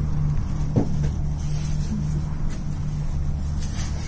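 Steady low mechanical hum inside a moving gondola cabin as it travels along the cable, with a single light knock about a second in.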